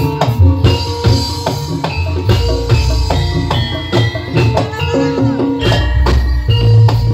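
Jaranan senterewe music: frequent drum strokes over held pitched notes, with a deep bass coming in about two seconds in and carrying on.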